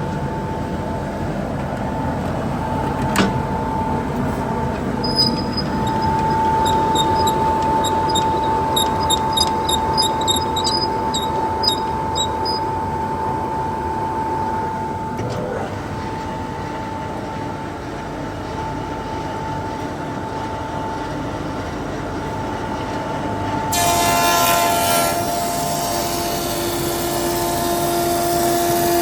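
Woodfast PT260 planer thicknesser running: a steady machine noise with a whine, joined by a run of fast light ticks from about five to twelve seconds in. Near the end the sound brightens and the whine shifts to lower tones.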